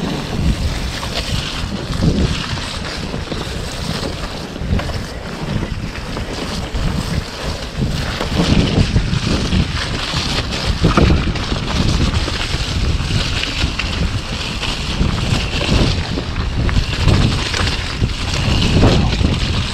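Wind rushing over the microphone of a helmet or chest camera while a mountain bike rides fast down a muddy trail, with the tyres rolling through wet mud. The noise is steady and gets a little louder about halfway through.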